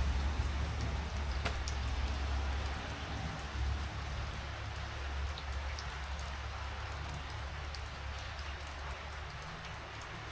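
Rain falling: a steady hiss with many small, scattered drop ticks, over a constant low rumble.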